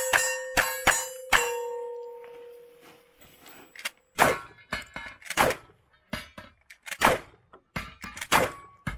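Revolver shots on steel targets: four quick shots in the first second and a half, the plates ringing on with a steady tone that fades away over a few seconds. Then a pump-action shotgun fires four times, roughly a second and a half apart, with lighter clacks between the shots, knocking down steel plate targets.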